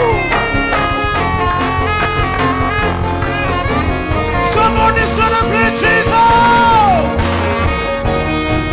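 Live worship band music played without singing: a lead melody of long held notes, several ending in a downward slide, over a steady bass accompaniment.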